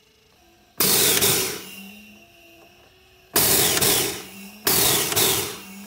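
Hydrorex GBT-series air-driven gas booster pump stroking, with a loud burst of rushing exhaust air at each stroke: the first about a second in, then the strokes come closer together as it builds nitrogen pressure in the hose under test.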